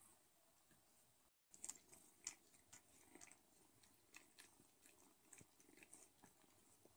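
Faint, irregular wet clicks and smacks of an adult Don Sphynx cat licking and grooming a kitten, after a short silent break about a second in.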